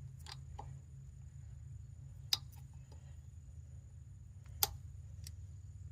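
Valve stem removal tool hooked into an old tyre valve stem, clicking against the wheel as the stem is worked to pull it out: two sharp clicks about two seconds apart and a few fainter ones, over a steady low hum.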